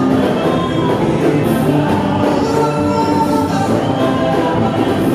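Live gospel praise music: a band playing while a lead singer and backing singers sing into microphones.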